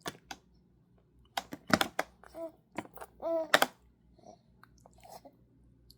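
Scattered sharp clicks and taps, several in a quick cluster about one and a half to two seconds in, with a short high-pitched child's vocal sound at about three seconds.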